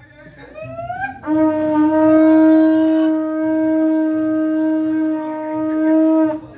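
A horn blown: a short note rising in pitch about half a second in, then one long steady note held for about five seconds that cuts off near the end.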